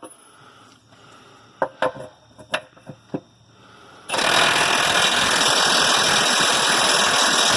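Impact wrench hammering steadily for about four seconds, starting about halfway in, as it drives a lug nut tight on the dual wheel. A few light clicks and knocks come before it.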